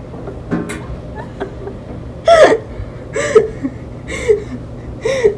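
A girl's short, sharp vocal outbursts, four of them about a second apart, in laughter.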